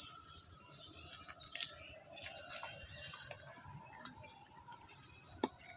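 Faint outdoor ambience with birds chirping now and then and scattered light clicks, one sharper click near the end.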